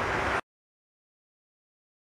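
Steady jet engine noise of a landing Airbus A330-200 rolling out on the runway, cut off suddenly about half a second in; the rest is complete silence.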